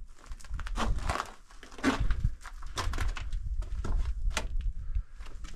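Footsteps on loose rock and timber planks: irregular crunches, scrapes and knocks, several a second, over low thuds.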